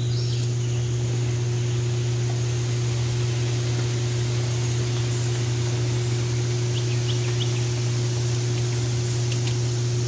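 Steady low machine hum with a fainter constant higher tone over a soft even hiss, unchanging throughout.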